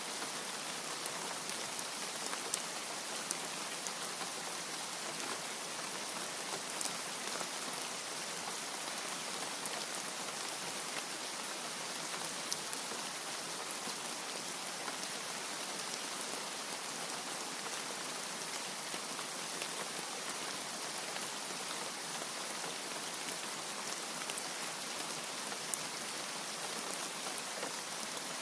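Steady rain falling, a dense even hiss with single drops ticking sharply now and then.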